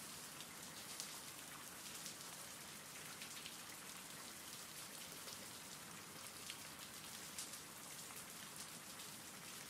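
Faint, steady rain falling: a recorded rain ambience with an even hiss and a few scattered sharper drop taps.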